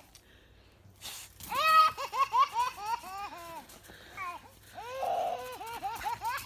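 A baby girl giggling in a fit of quick, high-pitched laughs, starting about a second and a half in, with a short pause before a second run near the end.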